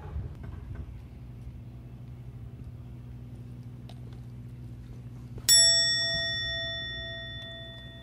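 A single bell-like ding, struck once about two-thirds of the way in and ringing out as it fades over about three seconds, over a steady low hum.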